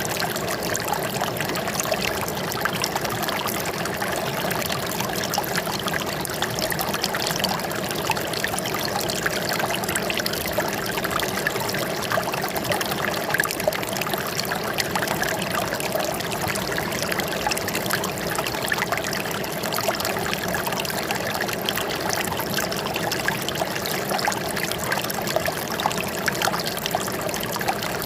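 Water flowing and trickling steadily, with a constant splashing babble.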